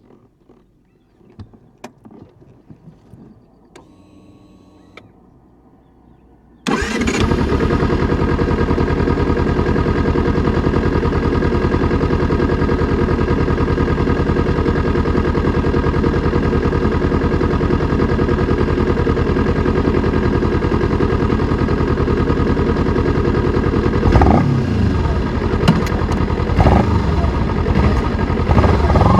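Kawasaki Ninja 300's parallel-twin engine with stock exhaust starting up about a quarter of the way in after a few faint clicks, then idling steadily. Near the end the throttle is blipped a few times, the revs rising and falling.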